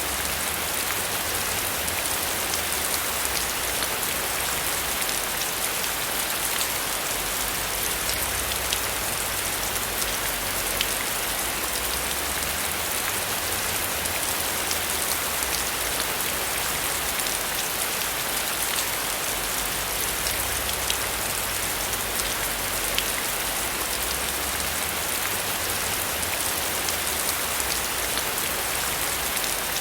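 Steady rainfall: an even hiss of rain with individual drops ticking sharply through it.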